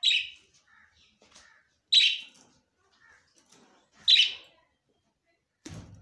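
Caged budgerigars calling: three loud, short, high chirps about two seconds apart, with softer chirping between them. A short thump comes near the end.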